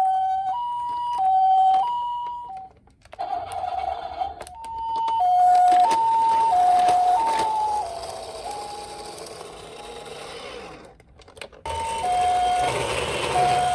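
Two-tone ambulance siren of the Japanese "pee-po" kind, alternating a high and a low note about every half second. It cuts out abruptly twice, and midway the notes slide lower in pitch.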